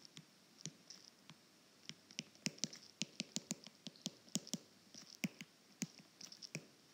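Faint writing sounds from a pen: irregular light clicks and short scratches, several a second, busiest in the middle.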